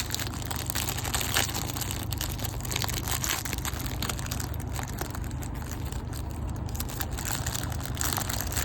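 Plastic wrapper of a baseball card rack pack crinkling and crackling steadily as it is handled and opened by hand.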